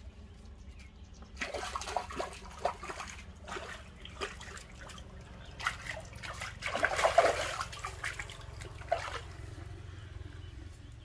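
A hooked fish splashing at the water's surface while it is reeled in, in several irregular bursts, the loudest about seven seconds in.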